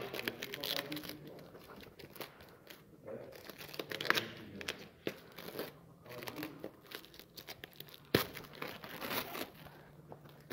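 Clear plastic protective film being pulled off a motorcycle seat by hand, crinkling and tearing irregularly.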